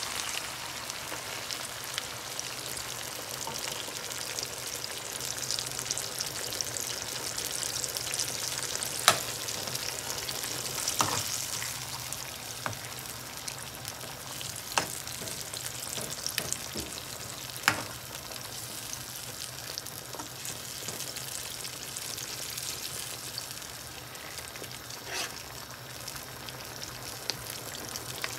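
Pork spare ribs sizzling in a pan in their sauce, a steady crackle, with several sharp knocks of a utensil against the pan as they are stirred.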